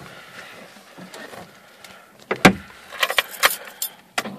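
Car keys jangling and clicking in the ignition lock of a Lada 2107: one sharp click a little past two seconds in, then a quick cluster of clicks about a second later. A low noise starts just before the end.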